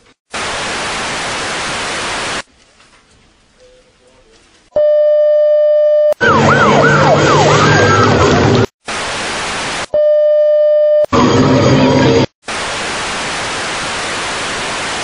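Edited bursts of TV static hiss, cut hard against a steady electronic tone that sounds twice. Between them comes a loud stretch of noise with a fast rising-and-falling siren.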